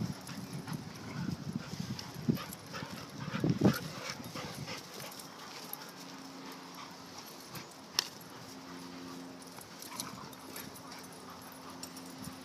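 Two young dogs play-fighting on grass: growly dog noises and scuffling, busiest and loudest in the first four seconds, then quieter. A single sharp click about eight seconds in.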